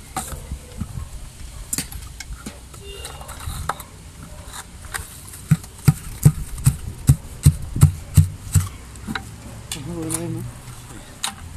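A run of sharp knocks, about three a second for three seconds, from tapping a freshly laid cement ecoblock down into its mortar bed, with scraping and clinking of mortar work around it. A brief voice near the end.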